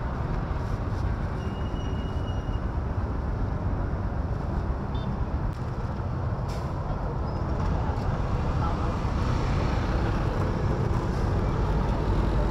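Busy street-market ambience: steady traffic noise with people talking in the background, and a brief high beep about two seconds in.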